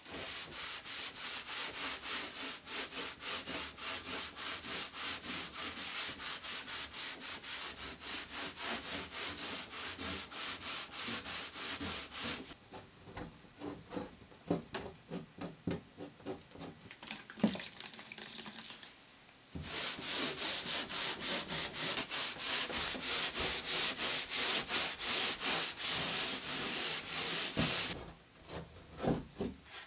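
Rubbing on a painted panel: a sponge and bare hand scrubbing back and forth in quick, even strokes. The strokes turn sparse and softer about twelve seconds in, pick up hard again about twenty seconds in, then thin out near the end.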